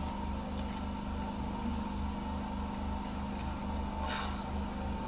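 A steady machine hum with a low throb pulsing a few times a second, and a faint soft noise about four seconds in.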